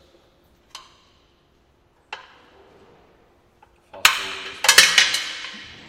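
Steel spanner clicking and clinking on the motor-mounting bolts of a belt-drive air compressor as they are loosened to slacken the drive belt: two single clicks, then about four seconds in a quick run of loud metallic clicks and clanks with a faint ring.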